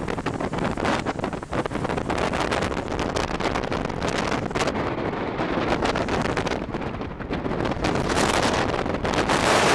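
Strong typhoon wind buffeting the microphone in gusts. The rush grows louder near the end.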